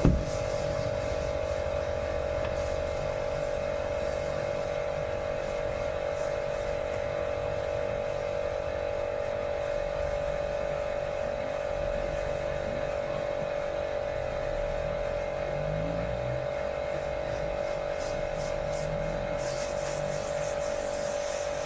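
A high-pressure car-wash machine's motor and pump run with a steady, even hum. There is a short knock right at the start. Near the end the hiss of the water jet comes in as the spray gun is turned on the car.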